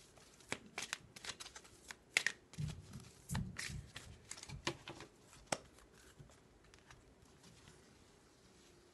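A deck of tarot cards being shuffled by hand: a quick run of card clicks and slaps that dies away about six seconds in.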